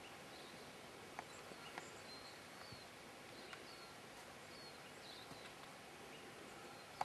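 Quiet outdoor ambience: a steady faint hiss with a few faint, high bird chirps and a couple of small clicks.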